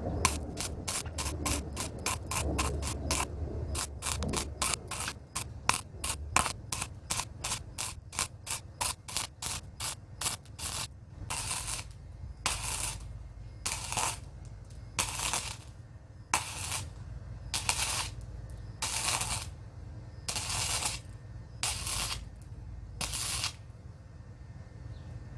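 Arc welding on a greenhouse frame's steel pipe joint, done in short stops and starts. For about the first ten seconds it comes as quick short crackling pulses, then as about eight longer half-second bursts of hissing arc. A low steady hum runs underneath.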